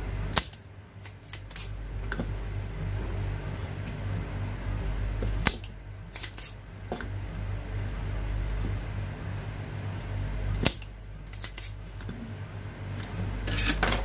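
Spring-loaded desoldering pump (solder sucker) snapping as its plunger is fired and re-cocked, sharp clicks coming in small clusters every few seconds, while solder is pulled off the IGBT transistor's pins on a microwave inverter board. A steady low hum runs underneath.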